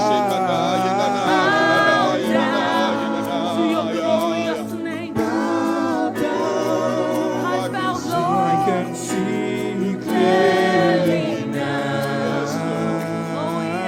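Worship singing: several voices hold long notes with vibrato, with no clear words.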